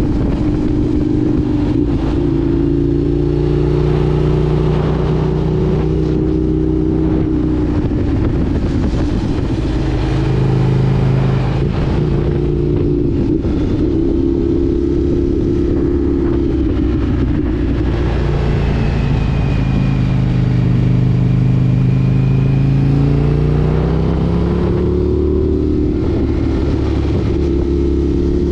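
Indian FTR 1200 S motorcycle's V-twin engine running under way, its pitch repeatedly rising and falling as the rider gets on and off the throttle and changes gear.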